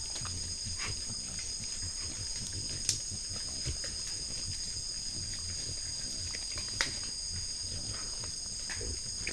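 White-lipped peccaries feeding at close range, with low grunts and chewing sounds, over a steady chorus of night insects trilling in several high-pitched bands. Two sharp clicks stand out, about three and seven seconds in.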